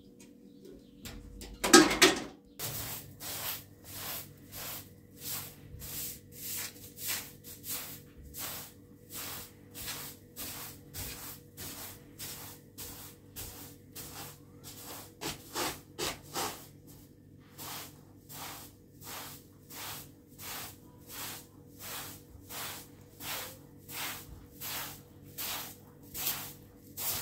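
A short straw hand broom sweeping a pile carpet in quick, even strokes, about two swishes a second. A brief loud noise comes about two seconds in, just before the sweeping starts.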